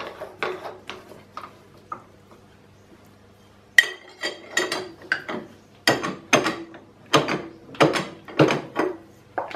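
Metal clicking and ratcheting on a milling machine's spindle as the tap is taken out and a counterbore is fitted. A few light clicks come first, then after a short pause a run of about ten sharp, ringing clicks, about two a second.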